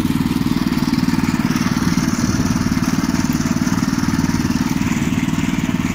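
Veles walk-behind tractor's single-cylinder engine running steadily under way, with a rapid, even beat.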